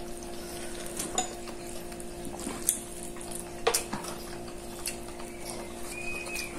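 Eating at a table: a few sharp clicks and clinks of a spoon and fingers against china and plastic bowls, over a steady low hum.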